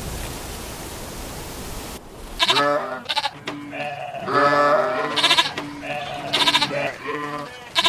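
Goats bleating: a series of about eight wavering calls of varied length, one longer than the rest, starting after about two seconds of steady outdoor hiss that cuts off abruptly.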